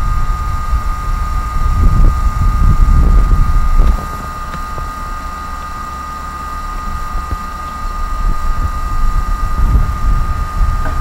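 Wind buffeting the camera microphone in uneven gusts, a low rumble that drops off suddenly about four seconds in and builds again near the end. A steady high-pitched whine runs through it all.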